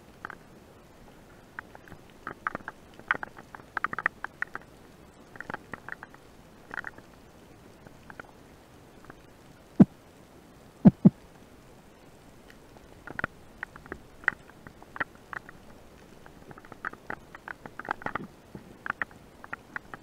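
Underwater sound picked up by a camera in its housing during a spearfishing dive: scattered small clicks and crackles come and go throughout, and three dull knocks land between about ten and eleven seconds in.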